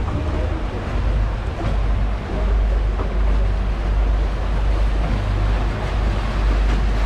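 Steady low wind rumble on the microphone over a haze of canal water noise while gliding along in a gondola.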